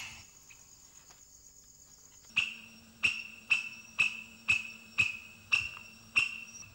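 Fork-marked lemur calling: a run of about nine sharp, evenly spaced calls, about two a second, starting a couple of seconds in. Its answer to a played-back rival's call. A faint steady high tone lies underneath.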